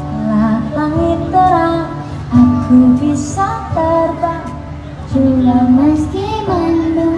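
Acoustic guitar accompanying a young girl and a woman singing a song together live through a microphone.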